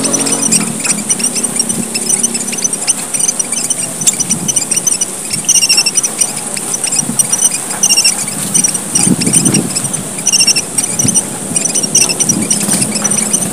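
A flock of emprit merah papua, small red finches, calling busily in a 'gocar' chorus: many short, high chirps overlapping and repeating without pause.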